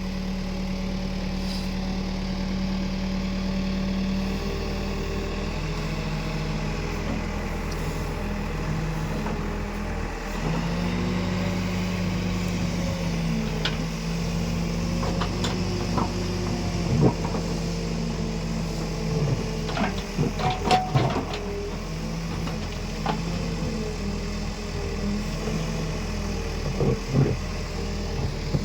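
Escorts Digmax backhoe loader's diesel engine running under changing load, its pitch stepping up and down as the hydraulics work. A few sharp clanks come past the middle and again near the end.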